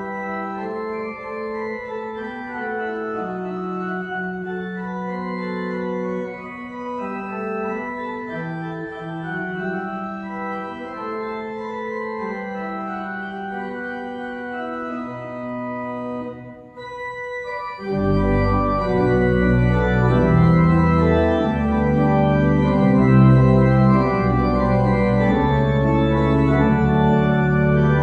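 Church organ playing slow, sustained chords. About two-thirds of the way through, after a brief break, it comes in much louder and fuller, with deep bass notes from the pedals.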